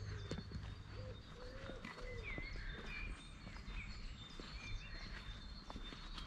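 Garden birdsong: several small birds chirping and whistling, with a pigeon cooing low in the first couple of seconds. Occasional footsteps on a stone path.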